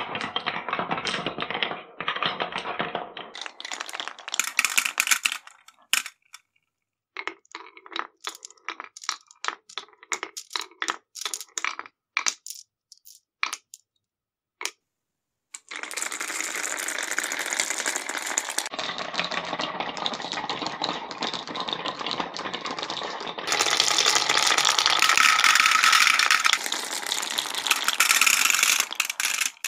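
Glass marbles rolling and clicking along grooved wooden Cuboro block tracks. Dense clatter at first, then scattered single clicks and a brief near silence, then a long continuous clatter of many marbles rolling at once, which gets louder in the last few seconds as they pile into the plastic beds of toy dump trucks.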